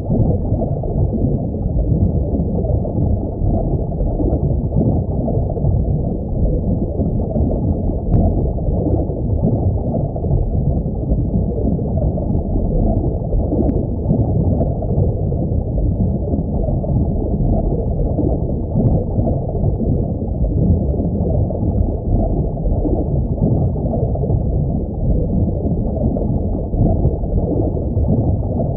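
Steady, muffled water noise of aquarium ambience, a low rumbling wash with nothing bright above it and no breaks.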